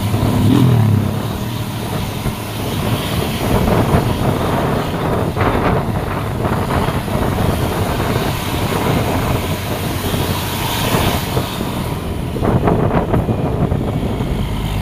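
Road traffic passing close by: engines and tyre noise, with a low engine note rising briefly in the first second.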